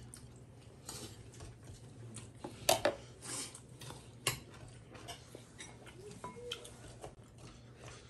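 Metal spoon and dishes clinking and tapping: scattered light clicks, with two louder knocks in the middle.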